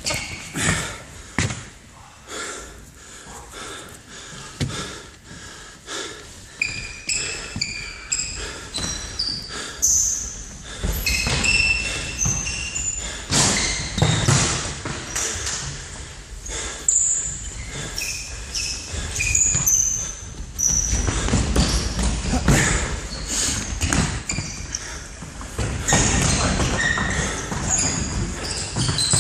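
Indoor football in a sports hall: the ball being kicked and bouncing off the floor and walls in irregular thuds that echo round the hall, busier and louder from about a third of the way in, with short high squeaks of sports shoes on the hall floor.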